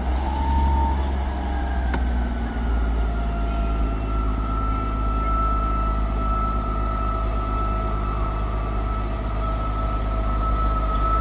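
Class 158 diesel multiple unit running: a steady deep engine rumble with a high, steady whine over it. A short hiss of air at the start and a single click about two seconds in.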